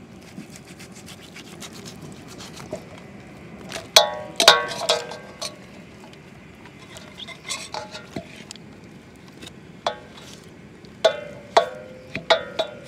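Knife cutting and scraping through a raw pig's head in a large stainless steel bowl, with sharp knocks of knife and meat against the bowl that ring briefly; the loudest knocks come in clusters about four seconds in, around eight seconds and near the end.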